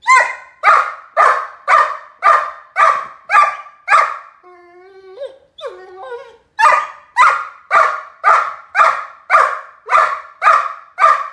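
Great Dane puppy barking steadily, about two barks a second, broken for about two seconds in the middle by a pitched, wavering whine before the barking resumes.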